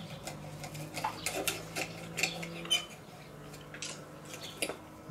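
Metal forks clinking and scraping on ceramic plates as people eat: a run of short, light clinks, irregular in timing.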